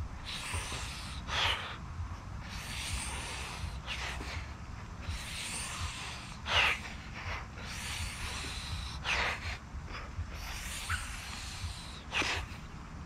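A man breathing hard from the exertion of high-volume pull-ups: five sharp, forceful exhalations about two and a half seconds apart, with softer breaths between them.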